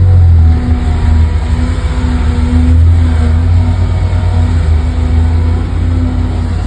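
Heavy truck engine sound, a fast low idle-like chugging with some revving, running steadily and loud.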